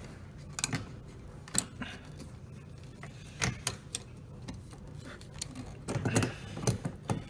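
Scattered sharp clicks and taps of pliers working a plastic twist-lock fitting on a dishwasher's spray arm motor assembly, with a quicker cluster of clicks near the end as it is turned to lock.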